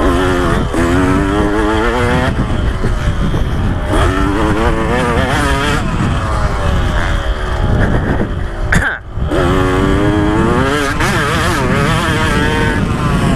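2015 KTM 125 SX's single-cylinder two-stroke engine revving hard under riding load, its pitch climbing through each gear and dropping at every shift, over heavy wind noise on the microphone. About nine seconds in, the throttle is chopped for an instant, then the engine revs back up.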